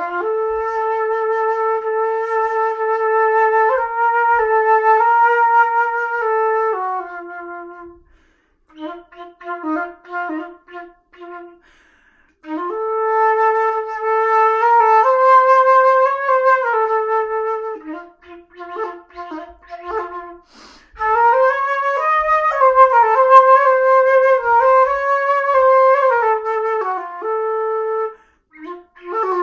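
Solo flute playing: long held notes that step up and down in pitch, broken by flurries of short, quick notes and brief pauses between phrases.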